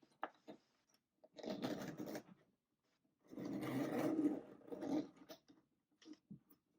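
Rustling and scraping of packaging being handled, in two longer stretches, the second about two seconds long, with small clicks and taps between them.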